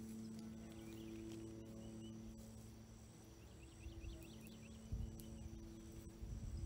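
Quiet outdoor ambience: a steady low hum with evenly spaced overtones, faint steady high-pitched insect drone, and scattered faint bird chirps. A brief low rustle comes about five seconds in.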